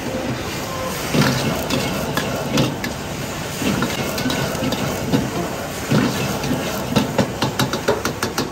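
Metal utensils clattering and scraping against a pan over food sizzling, with sharp knocks throughout and a quick run of clacks near the end.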